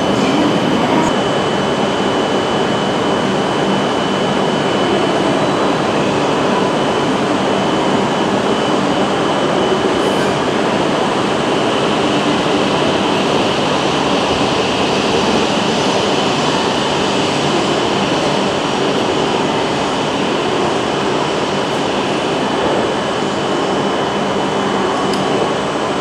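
Steady running noise of Shinkansen trains at a platform as the E6 series Komachi, just uncoupled from the E5 series, pulls away, with a thin steady high-pitched whine over it.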